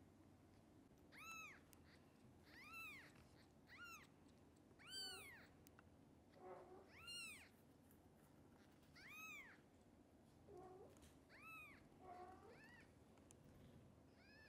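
Newborn kittens mewing: about eight thin, high mews, each rising then falling in pitch, a second or two apart, with a few fainter, lower calls in between.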